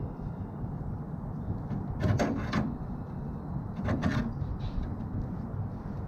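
Knipex pliers wrench clicking and clacking against the sheet-steel edge of a 1955 Snap-on KR61 tool chest as it is clamped on and squeezed to press the bent edge flat. Two short clusters of metallic clicks, about two seconds in and again about four seconds in, over a steady low rumble.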